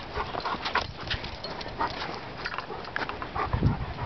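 Dogs playing: a scatter of short, irregular high sounds, with a brief lower sound near the end.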